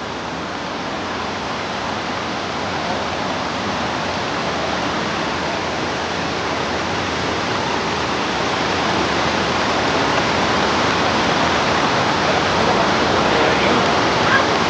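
Rushing river water, a steady rush that grows gradually louder.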